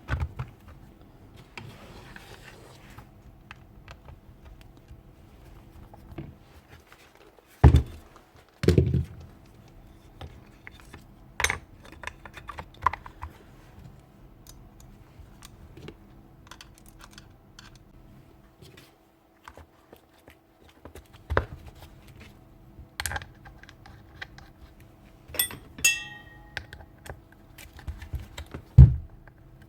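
Handling and reassembly of a Bosch GEX150AC orbital sander: scattered small clicks and taps of plastic housing parts and screws, with several louder knocks spread through, over a faint steady hum.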